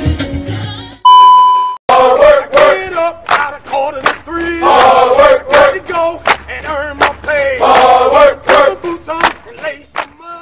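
A loud steady beep, under a second long, then a high-pitched voice shouting and exclaiming loudly with sweeping pitch until near the end.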